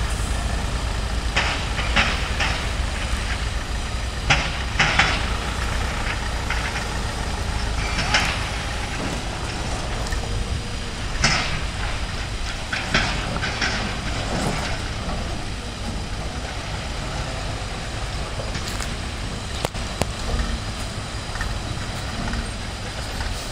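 Heavy diesel truck with a lowbed trailer running and manoeuvring at low speed, a steady low engine rumble. Brief hisses come now and then, a dozen or so, mostly in the first half.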